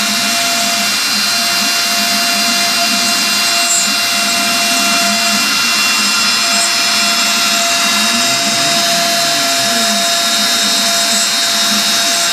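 DIY 3D-printed Mostly CNC milling machine running steadily while it mills out a logo: a loud, constant high-pitched spindle whine, with a lower tone underneath that keeps rising and falling.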